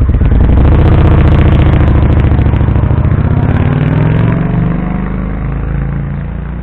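Honda Shadow VT750 V-twin motorcycle pulling away from close by and riding off down the street. It is loud at first, its exhaust note rises a little in pitch as it accelerates, and it fades steadily into the distance from about four seconds in.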